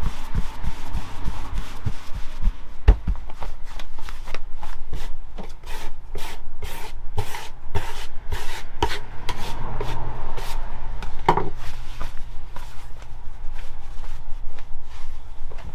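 Hands pressing, slapping and turning pizza dough on a work surface while stretching it into a Neapolitan base: a run of quick, irregular pats and soft knocks. A steady low hum runs underneath.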